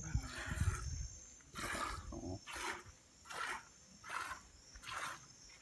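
Cow's milk squirting by hand into a bucket in hissing spurts, about one a second, one spurt per squeeze of the teat. There is a low rumble in the first second.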